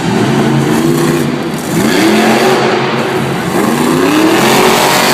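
Grinder monster truck's engine revving hard, its pitch climbing sharply about two seconds in and again near the end.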